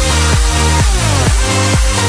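Electronic dance music with a steady, heavy kick drum about twice a second under sustained synth notes.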